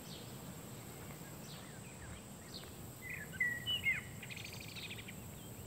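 Small birds chirping over faint outdoor background noise. About three seconds in there is a louder run of whistled chirps, followed by a quick trill.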